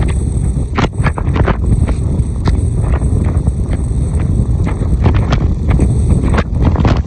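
Strong wind buffeting the microphone: a continuous low rumble with frequent sharp crackles, over the noise of a rough sea.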